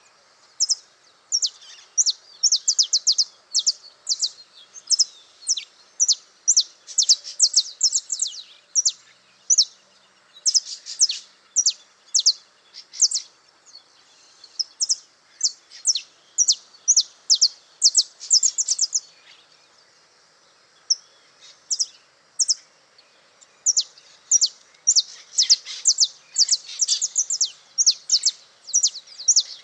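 Male saffron finch singing: phrases of short, sharp, high notes, each a quick downward sweep, repeated throughout with a short pause a little past the middle.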